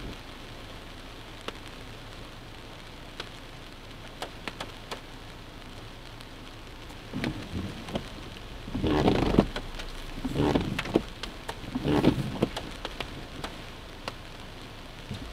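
Heavy rain hitting a car's roof and windshield, heard from inside the cabin: a steady hiss with scattered sharp drop ticks. Several louder rushes come and go in the second half.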